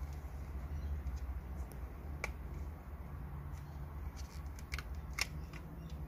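Plastic clips of a car's overhead map light housing clicking as they are pried apart by hand: a few sharp clicks, one about two seconds in and two close together near five seconds, the second of those the loudest. A steady low hum runs underneath.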